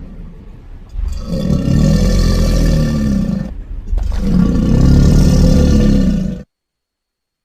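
A dragon's roar sound effect made from layered monster and dinosaur roars: two long, deep roars one after another, the second cutting off abruptly.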